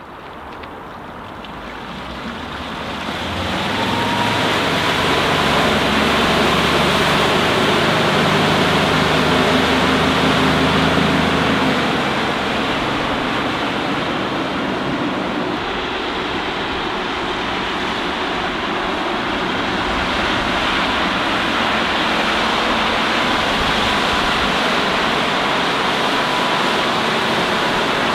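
Motorboat's Volvo Penta D3 190 diesel running at planing speed, a low hum under a steady rushing noise of its wake. The sound fades in over the first few seconds, and the hum is plainest in the first dozen seconds.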